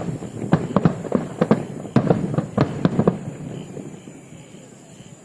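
Fireworks going off: a rapid, irregular run of sharp cracks and bangs for about three seconds, then dying away into a fading rumble with a few faint pops.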